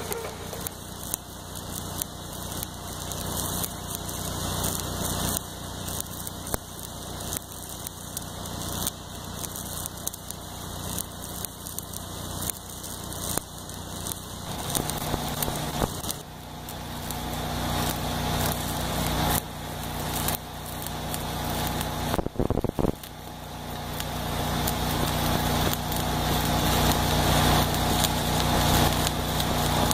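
Stick (arc) welding on a steel beam: the arc crackling and sizzling steadily as a bead is laid, with a brief break about three quarters of the way through.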